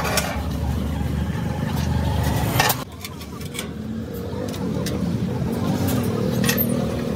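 Thin steel sheet for a silencer shell being bent into a curve by hand, giving a few sharp metallic clanks, the loudest a little under three seconds in. Under it runs a steady low engine drone from a running vehicle, which drops in level just after the loudest clank.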